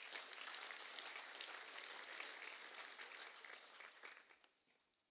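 An audience of students clapping, a steady patter of many hands that dies away about four seconds in.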